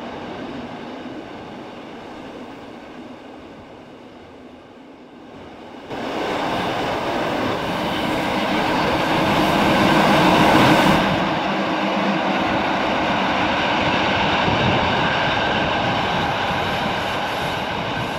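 Rhaetian Railway narrow-gauge train rolling through a tunnel, heard from aboard: wheels on the rails making a loud, steady rumble. It starts suddenly about six seconds in after a quieter rumble, is loudest a few seconds later, then eases a little.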